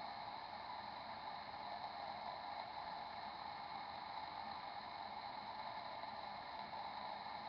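Steady, even hiss, strongest in a band around the middle of the range, with no distinct events: the camera microphone's own noise and room tone.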